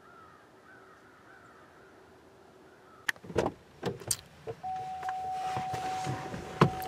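Faint, quiet woodland background, then after a cut a run of sharp clicks, knocks and rustling inside a parked car's cabin. A steady high tone sets in about halfway through.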